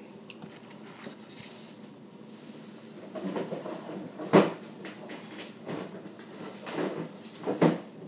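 Two sharp knocks close to the microphone, about three seconds apart, amid softer rustling and handling noise.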